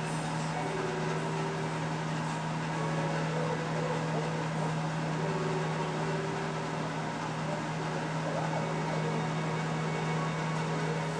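A household appliance motor running with a steady low hum and an even rush of air, with a few faint short squeaks over it.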